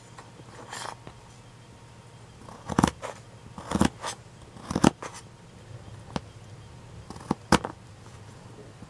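Kitchen knife cutting carrot on a plastic cutting mat: about six slow, separate chops roughly a second apart, each a crunch through the carrot ending in a knock of the blade on the mat, starting a few seconds in.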